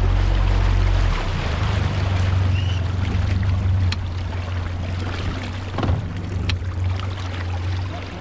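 Boat's outboard motor running with the boat underway, over water and wind noise; the engine note drops a little about a second in. Two short clicks come about four and six and a half seconds in.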